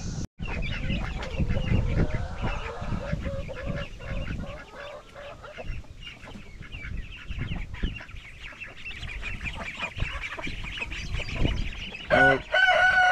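A flock of chickens clucking, with many short overlapping calls, and a rooster crowing loudly near the end.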